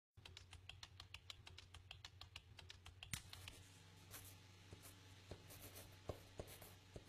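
Faint laptop keys tapped in a quick, even run of about seven a second for the first three seconds, then a marker squeaking in short, irregular strokes on a whiteboard.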